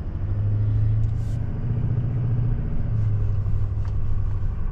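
Duramax diesel pickup engine pulling under load, a steady low drone that dips briefly twice.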